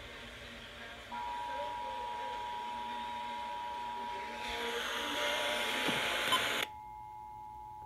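Emergency Alert System two-tone attention signal: a steady dual tone that starts about a second in and holds. A hiss of radio noise swells over it midway and cuts off abruptly about two-thirds of the way through.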